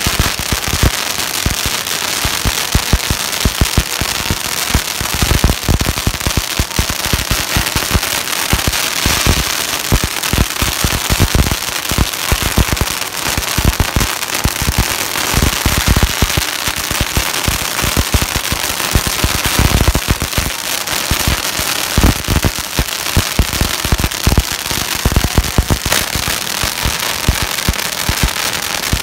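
Long strings of red firecrackers hung from tall poles going off in a dense, rapid, unbroken crackle of loud bangs.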